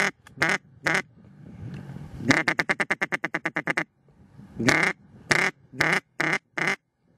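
Loud duck quacking: three single quacks, a fast chattering run of about fifteen quacks, then five single quacks about half a second apart.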